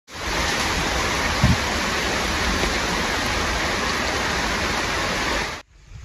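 Heavy rain pouring down as a steady, dense hiss, with a brief low thump about one and a half seconds in; it cuts off abruptly about five and a half seconds in.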